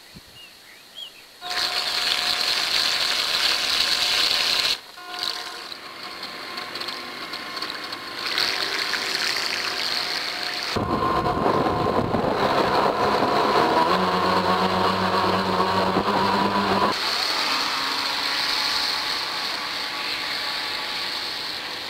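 The twin electric motors of an RC speedboat whining at speed, with the whine dropping off and coming back abruptly several times as the throttle changes. Through the middle stretch a rushing noise from the hull and props in the water runs under the whine.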